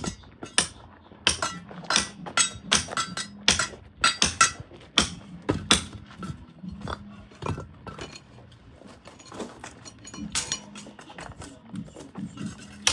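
Construction work with hand tools: irregular sharp knocks and metallic clinks, a few a second, over a faint steady hum.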